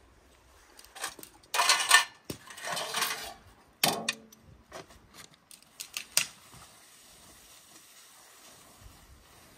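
Metal dishes and a stainless steel tray clattering and scraping as they are washed by hand in a basin. The loudest clatter and scrubbing comes about two and four seconds in, followed by a few lighter clinks, and the sound dies down after about six seconds.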